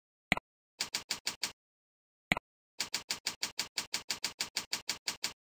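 Typing on a computer keyboard: a single mouse click, a short burst of about five keystrokes, another click, then a steady run of keystrokes at about six or seven a second as an email address is entered.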